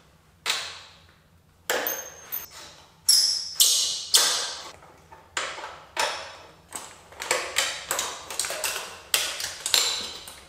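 Metal tools and metal parts clinking and tapping: repeated sharp metallic strikes at irregular intervals, each ringing briefly.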